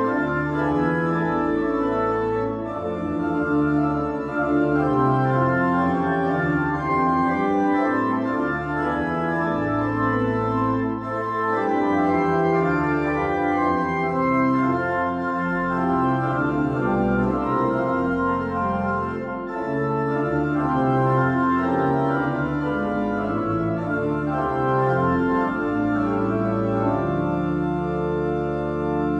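Organ playing a hymn tune in slow, sustained chords that change every second or so.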